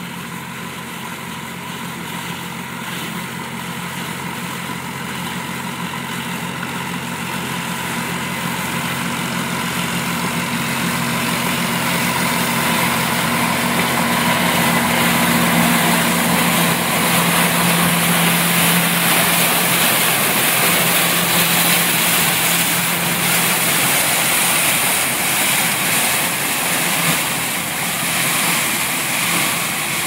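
Old combine harvester running while harvesting soybeans: a steady engine note over a broad mechanical noise. It grows louder as the machine draws near, its pitch drops a little about halfway through as it passes close, and it eases off slightly as it moves away.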